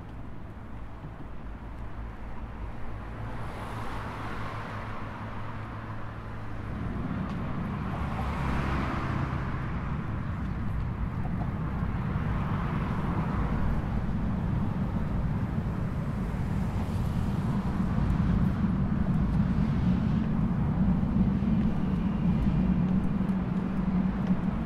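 Road traffic: cars pass one after another about every four seconds, each rising and fading, over a low steady rumble that grows stronger in the second half.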